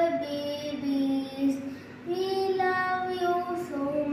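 A child singing a slow melody in long held notes that slide from one pitch to the next, with a short pause for breath a little under halfway through.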